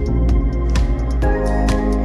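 Background music with sustained tones and a steady beat of about two strokes a second.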